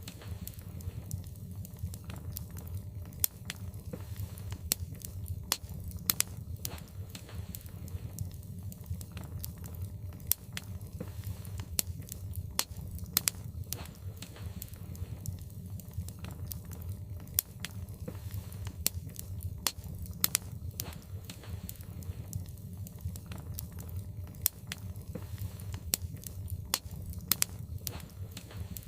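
Logs burning in a fireplace, crackling with frequent, irregular sharp pops over a steady low rumble.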